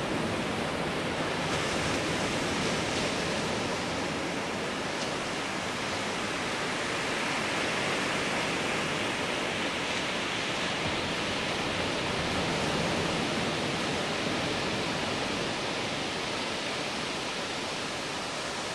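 Steady rush of ocean surf breaking on the beach, swelling a little around the middle.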